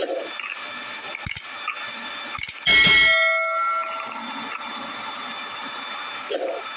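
Subscribe-button animation sound effect: a few sharp clicks, then a bell ding nearly three seconds in, the loudest sound here, ringing out and fading over about a second.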